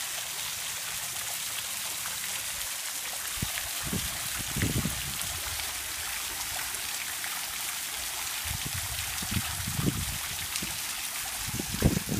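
A park fountain's water splashing steadily into its pool, a continuous hiss of falling water. A few brief low rumbles on the microphone come about four, ten and twelve seconds in.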